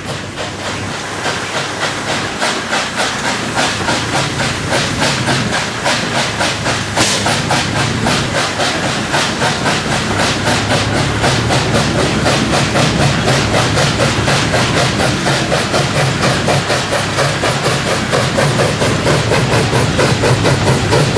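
Coal-fired 1924 H.K. Porter saddle-tank steam locomotive (14x22 cylinders) working hard up a grade under load, with a fast, steady beat of exhaust chuffs from its stack. The beat grows louder as it approaches.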